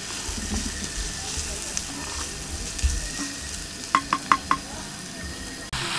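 Diced onion and garlic sizzling in oil in a cast iron skillet while a spatula stirs and scrapes them around the pan, with four quick clinks about four seconds in.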